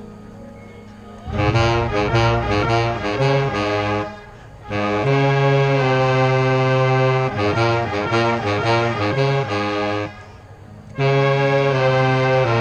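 Marching band winds and brass playing in three loud phrases with short breaks between them. The first phrase is a run of quick changing notes, and the next two are long held chords with a strong low bass line.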